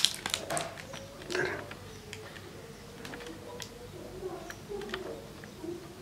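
Quiet handling of a plastic-wrapped 30-watt horn speaker: a few soft rustles of the plastic and light clicks, one slightly louder bump about a second and a half in.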